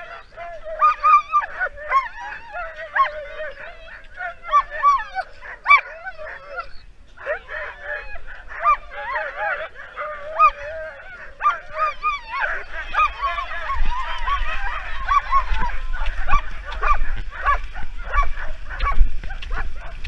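Skijoring dogs barking, yelping and whining in many overlapping voices at the start line, eager to run. About two-thirds of the way through, a low rumble builds under the barking.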